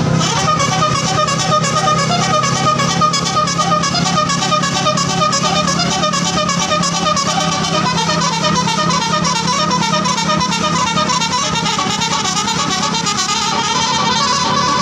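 Tour bus telolet horn playing a rapid melody of quickly alternating tones without a break, over a steady low hum.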